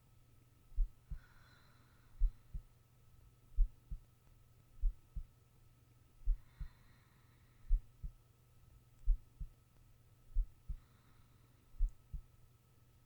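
A slow human heartbeat heard close to the chest: a double thump about every 1.3 seconds. Soft breaths of a sleeping person come in three times, about every five seconds. A faint steady hum runs underneath.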